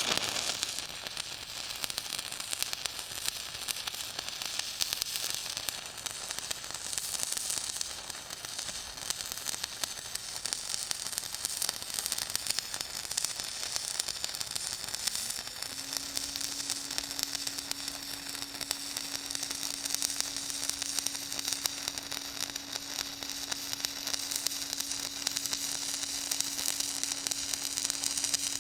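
Continuous crackling sizzle of an electric welding arc, starting suddenly and running without a break. A steady low hum comes in about halfway through.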